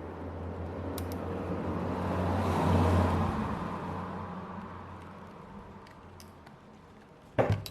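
A vehicle passing by, its noise swelling to a peak about three seconds in and then fading away. A small click comes about a second in, and a sharp knock near the end.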